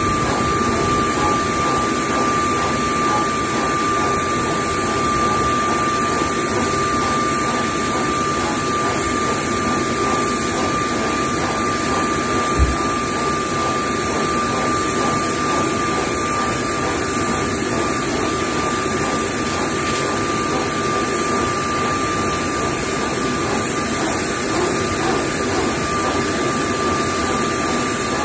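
Steady whine and rush of a powered-up Airbus A320's systems running during a functional test, with two steady tones over the noise. A single short knock about twelve seconds in.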